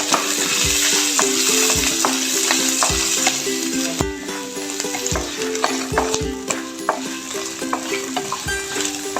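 Shallots, garlic, ginger and dried chillies sizzling in hot oil in a pan while being stirred. The sizzle is strongest in the first few seconds.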